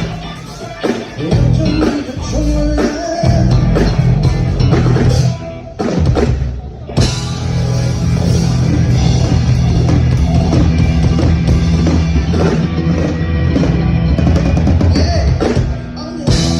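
A rock band playing live, with a drum kit and a Fodera Emperor Deluxe five-string electric bass whose low notes are strong throughout. The band drops out briefly about six seconds in and comes back in full a second later.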